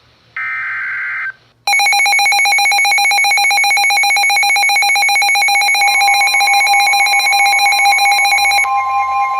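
Emergency Alert System signalling on NOAA Weather Radio. About half a second in comes a short, screechy digital header burst. Then a loud, rapidly pulsing electronic alert tone starts, and a second steady, higher tone joins it about six seconds in and grows stronger near the end, announcing an incoming severe thunderstorm warning.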